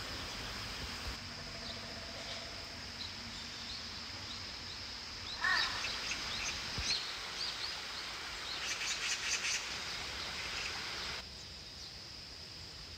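Small birds chirping in quick clusters of short calls, busiest in the middle, over a steady outdoor background hiss with a faint high whine. The background drops suddenly near the end.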